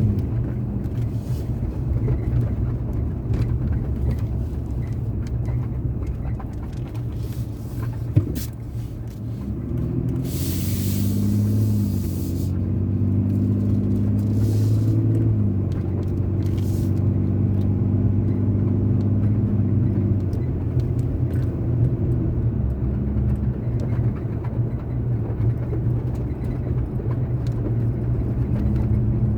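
Nissan Frontier pickup driving: steady engine hum and road noise, with the engine note shifting a few times between about ten and sixteen seconds in. A single sharp click comes about eight seconds in, and a brief hiss about ten seconds in.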